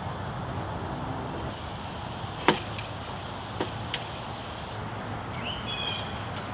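Steady background hiss broken by three sharp clicks: a loud one about two and a half seconds in, then two lighter ones about a second later. A bird chirps briefly near the end.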